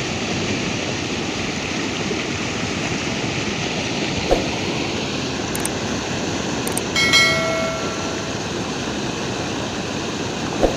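Floodwater rushing steadily, a continuous loud roar of water. About seven seconds in a short pitched tone sounds briefly over it.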